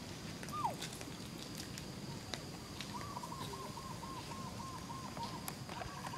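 Faint animal calls: a single short falling note about half a second in, then from about three seconds a run of about ten quick repeated notes, some four a second, over scattered light clicks and rustles.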